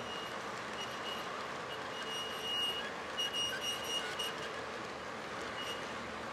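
Three-rail O scale model train rolling along FasTrack with a steady rumble of wheels and track. A high squeak from one car comes and goes; it most likely just needs a little lube.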